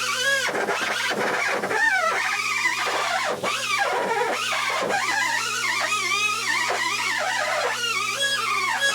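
Power tool spinning a polishing wheel against an aluminium intake manifold, a steady motor hum under a squeal that wavers up and down in pitch as the wheel is pressed and moved over the metal.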